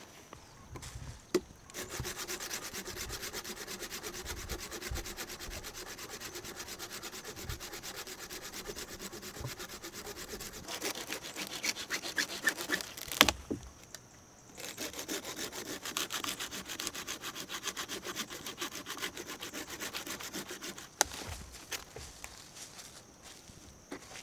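Hand saw cutting through wood in fast, steady strokes, in two long spells with a short pause and a sharp knock about halfway through.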